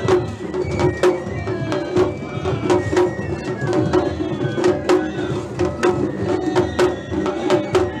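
Japanese festival-float music: a shime-daiko drum beaten with sticks in sharp strokes about twice a second, over a steady, sustained pitched melody line.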